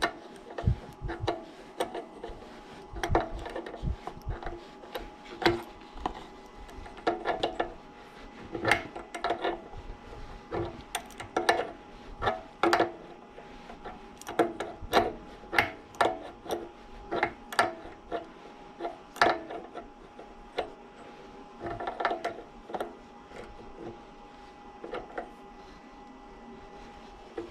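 Irregular knocks and clinks of tools and metal parts being handled, some striking twice in quick succession, with brief ringing after the louder ones.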